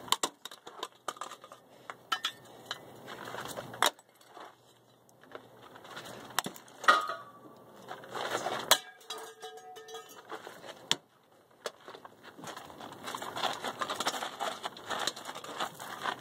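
Scattered light clicks, clinks and knocks of small objects landing on gravel, a few of them sharp, with crackly crunching on gravel in the last few seconds. The seat's side airbag does not go off.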